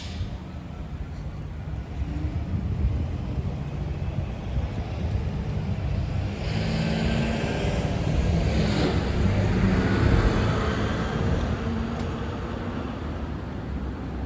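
A city bus engine rumbling as it goes by in road traffic, swelling to its loudest about two-thirds of the way through and then fading.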